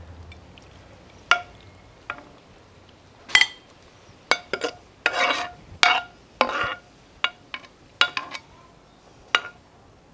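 A skillet and serving spoon clinking against ceramic bowls as escovitch topping (pickled onions, peppers and carrots in vinegar) is spooned and poured over fried fish: about ten sharp clinks, each with a short ring, mixed with brief slides and splashes of the vegetables and liquid.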